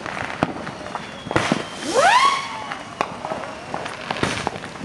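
Fireworks going off: a whistling firework rises quickly in pitch and then slowly falls about two seconds in, with several sharp pops scattered through.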